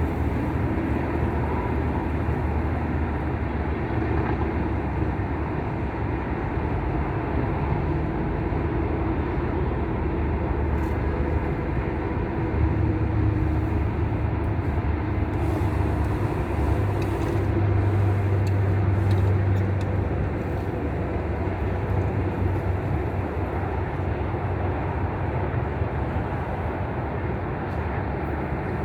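Wind buffeting the microphone: a steady low rumble that swells twice, about twelve and eighteen seconds in.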